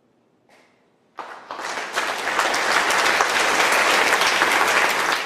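Audience applauding after a song. The clapping starts about a second in, swells quickly to a loud, dense clatter and holds there.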